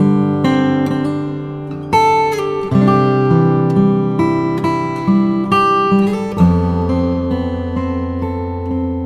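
Background music: acoustic guitar, plucked and strummed chords.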